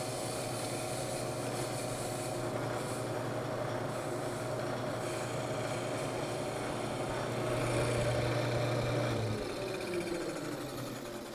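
Shop-built wood lathe running with a steady motor hum while a light finishing kiss cut is taken on a wooden banjo rim. About nine seconds in the motor is switched off and the spindle winds down with a falling tone.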